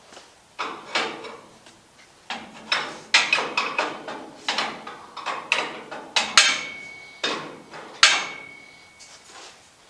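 Metal clanking and knocking from hand tools on steel parts during vehicle disassembly: about a dozen irregular strikes. Two of them, midway and later on, ring on briefly with a clear metallic tone.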